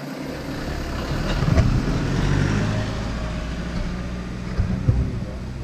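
Golf cart on the move: a steady low engine hum with road noise that comes in just after the start, and a couple of short knocks near the end.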